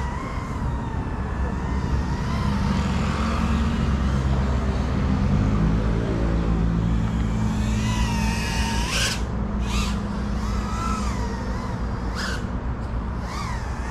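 GEPRC CineLog35 cinewhoop drone's brushless motors and ducted propellers whining in flight, the pitch gliding up and down with throttle. There are four brief, sharp throttle punches in the second half, with a low hum underneath in the middle.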